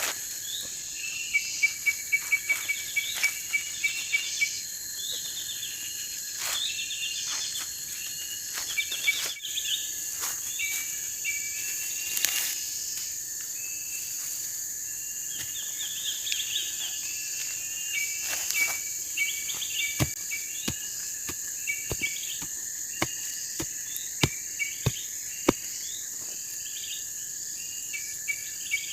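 Chorus of crickets and other insects: steady high-pitched trilling with short chirping trills repeating over it, and scattered sharp ticks, several of them in the last third.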